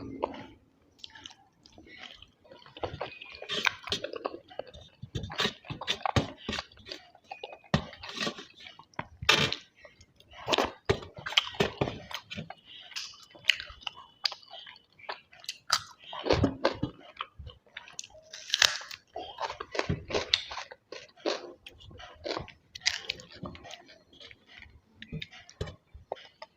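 Close-miked chewing of food, wet mouth sounds mixed with irregular crunches and crackles.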